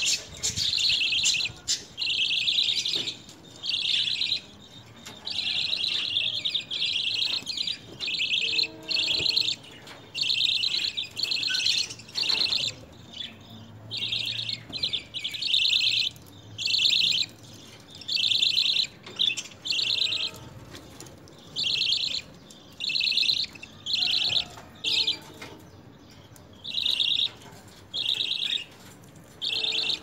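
A flock of budgerigars chattering in short, high-pitched bursts about a second long with brief pauses between them.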